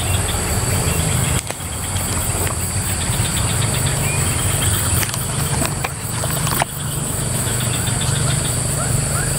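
A steady low hum, engine-like, under a continuous high-pitched insect drone; the sound dips briefly twice.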